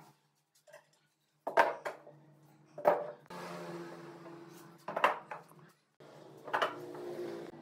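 Steel pipe clamps and wood blocks set down on a wooden workbench: four sharp metallic clanks, each followed by a brief ringing of the pipe.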